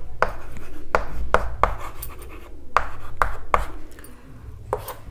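Chalk writing on a chalkboard: about ten sharp taps of the chalk on the board, irregularly spaced, with short scratchy strokes between them.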